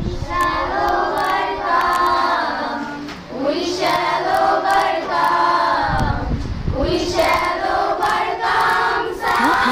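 A group of women singing together in unison, in three sustained phrases of about two and a half seconds each, with a low thudding between the second and third phrases.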